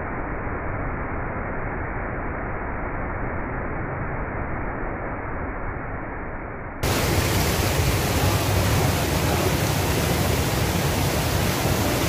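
Steady rushing noise of a waterfall and fast river water, dull and muffled at first. About seven seconds in it cuts suddenly to a louder, brighter rush.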